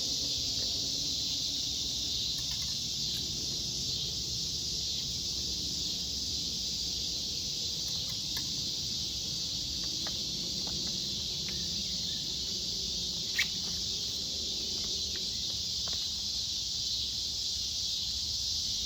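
Steady high-pitched insect chorus, an unbroken buzzing hiss, with one sharp click about thirteen seconds in.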